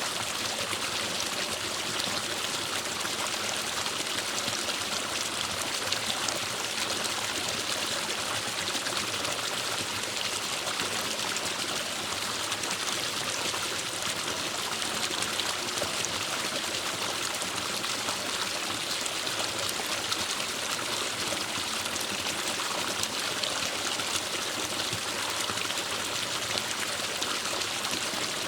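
Forest stream running steadily, water splashing and trickling over rocks.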